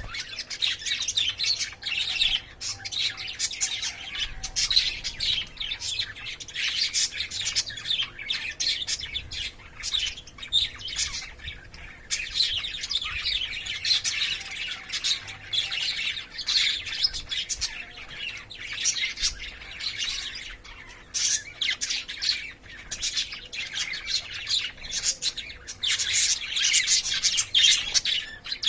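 Caged lovebirds chirping and squawking continuously, a dense stream of short, sharp, high calls.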